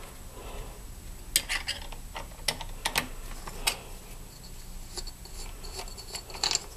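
Half-inch wrench clicking on the bowl nut of a Tecumseh lawn mower carburetor as the nut is worked loose to take off the float bowl. The clicks are light, metallic and irregular.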